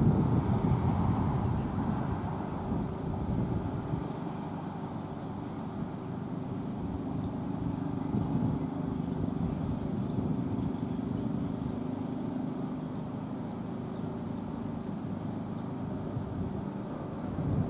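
Steady outdoor stadium ambience from an open broadcast microphone at a football game: a low, even din of crowd and field noise, a little louder in the first couple of seconds, with a constant faint high-pitched electronic whine.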